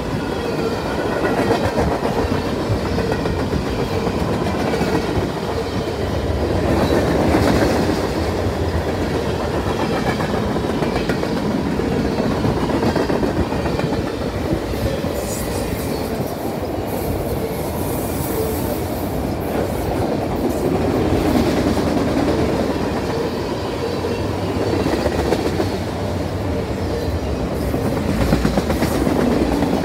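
A freight train's cars rolling past at close range: a steady rumble of steel wheels on the rails with rapid clickety-clack over the rail joints.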